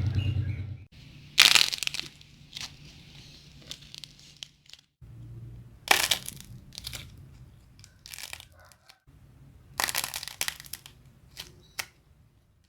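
Cracking clay (dried, crackly craft clay) being squeezed and crushed, giving a handful of sharp crunching crackles several seconds apart with quiet gaps between. The loudest crunch comes about a second and a half in.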